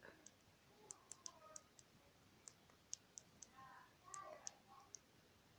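Zuru fidget cube's push buttons being pressed, giving faint, sharp little clicks at an uneven pace, about a dozen of them.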